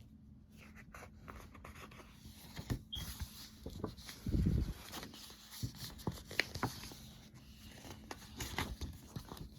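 Faint handling noises: scattered light clicks and rustles, with a low muffled thump about four and a half seconds in.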